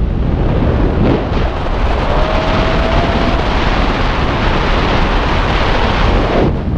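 Loud wind rushing over the camera's microphone under an open tandem parachute canopy. The rush grows stronger about a second in and falls back near the end.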